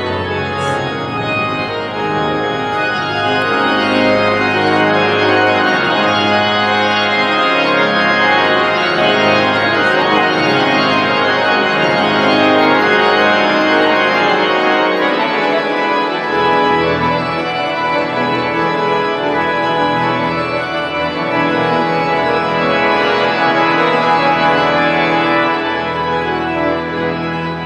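The Great Organ of Washington National Cathedral, a large pipe organ, playing loud sustained chords over pedal notes, with a deeper pedal note coming in about halfway through.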